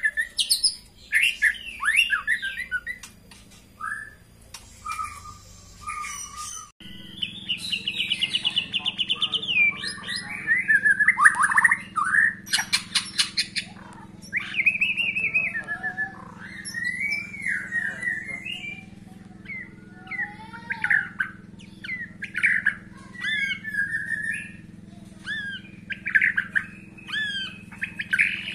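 White-rumped shama singing almost without pause: quick varied phrases of whistles, chirps and harsh notes that glide up and down. About seven seconds in, a steady low hum joins behind the song.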